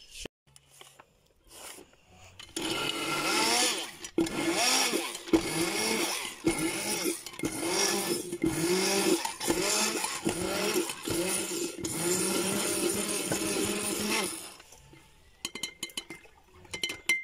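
Stick blender running in a glass jar, puréeing strawberries and ice cream for a milkshake. It starts about two and a half seconds in, and its motor pitch dips and recovers again and again as the blade meets the fruit. It stops about three seconds before the end, followed by a few light clinks against the glass.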